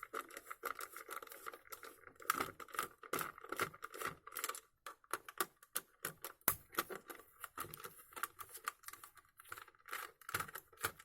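Irregular light clicks and scraping of a screwdriver and small screws in a plastic schuko plug-splitter housing being unscrewed and taken apart.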